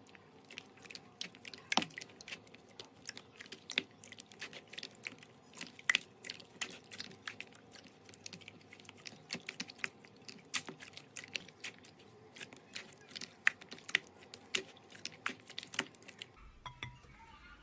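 Slime being squeezed and poked by hand, giving irregular crackling clicks and pops, several a second, which stop about sixteen seconds in.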